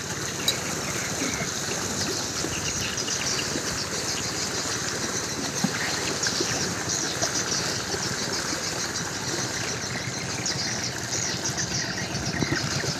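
Small boat engine running steadily, heard at a distance over open-air river ambience.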